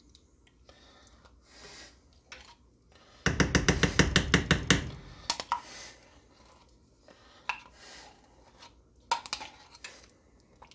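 Metal spoon scraping thick tomato paste out of a tin can and clinking against the can and pot. A rapid rasping scrape lasts about a second and a half a few seconds in, followed by scattered single clinks.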